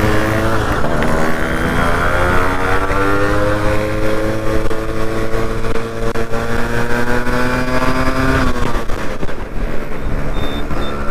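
Two-stroke Yamaha RX motorcycle engine under acceleration, its note rising steadily for about eight seconds, then dropping suddenly near the end as the throttle comes off or a gear changes.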